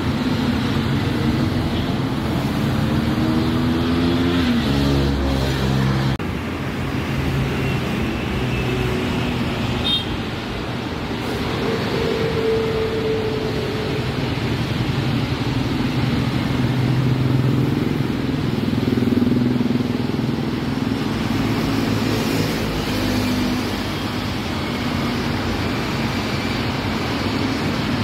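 Steady road traffic on a busy multi-lane highway: cars, motorcycles and buses going past, their engines rising and falling in pitch as they pass.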